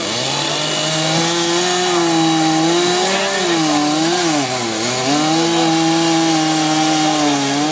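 Chainsaw revving up and cutting into a wooden log. The engine pitch sags a few times in the middle as the chain bites under load, deepest just under five seconds in, then climbs back to a steady high rev.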